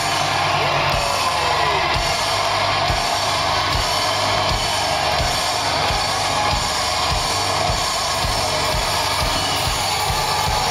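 Live rock band playing loud, with distorted electric guitars over a steady drum-kit beat.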